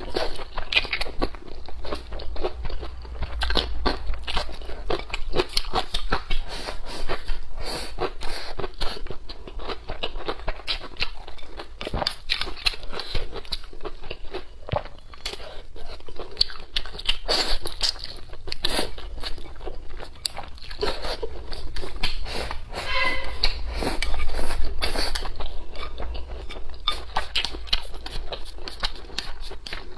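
Close-miked eating sounds: biting into a green chili pepper and chewing spicy braised pork intestines, with a steady run of quick, irregular crunches and wet mouth clicks.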